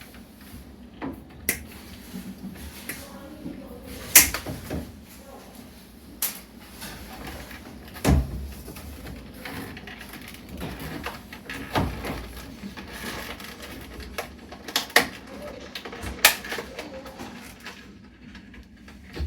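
Irregular clicks, knocks and rattles of plastic parts and tools being handled inside a washer's control panel, about one sharp knock every one to three seconds, the loudest about four seconds in.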